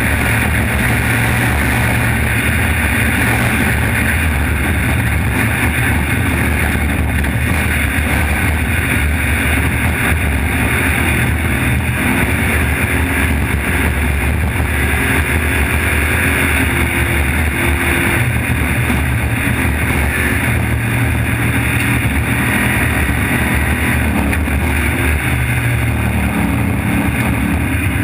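Trophy truck driving fast over desert dirt and gravel: a steady engine drone mixed with tyre, gravel and wind noise, picked up on a camera mounted on the chassis by the rear wheel.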